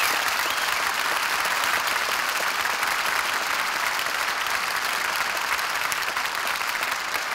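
Studio audience applauding steadily after a song ends, easing off slightly near the end, heard on an old radio transcription-disc recording.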